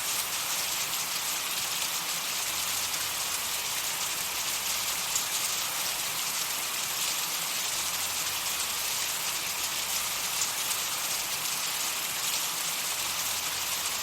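Steady, high-pitched hiss of a white-noise track for tinnitus masking, with a faint crackle running through it.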